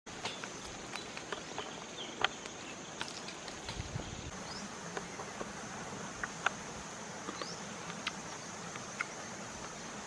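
Steady high-pitched drone of insects, with scattered sharp little clicks and snaps as fruit is picked and handled.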